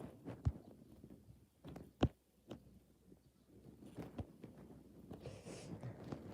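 A few irregular knocks and thumps, the sharpest about two seconds in, over a faint low rumble, with a brief hiss near the end.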